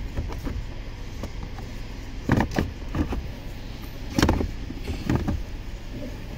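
Hard plastic knocks and rattles as a 2014 Honda Accord's instrument cluster, its screws already out, is worked loose from the dashboard by hand: a handful of short clunks from about two seconds in, the loudest about four seconds in, over a steady low hum.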